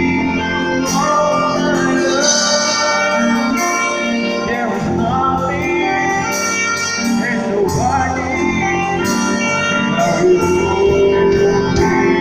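A live band playing a slow gospel song: electric keyboard, saxophone melody, conga and drum kit with regular cymbal strokes, and a man singing over it.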